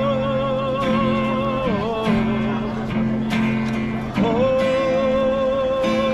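Street musician singing long held notes with vibrato over a strummed acoustic guitar, chords struck at an even pace about every second and a quarter. One held note falls away about a second and a half in, and the next begins about four seconds in.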